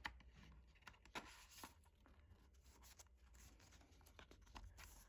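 Faint, scattered rustling and light clicks of an album's paper and plastic inclusions being handled.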